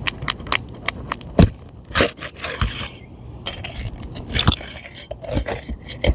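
Metal roof snake (shingle nail remover) working under an asphalt shingle to hook a roofing nail: repeated clinks and scrapes of steel against the nail and shingle, with a few sharper knocks.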